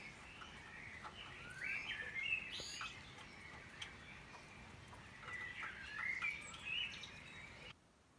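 Songbirds singing in the early-morning dawn chorus, with two bouts of chirping, warbling phrases over a faint steady hiss; the sound drops away abruptly near the end.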